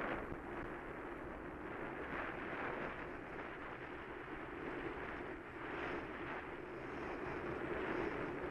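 Wind rushing over the microphone of a camera on a moving bicycle, mixed with tyre noise on asphalt; a steady noise that swells and eases irregularly.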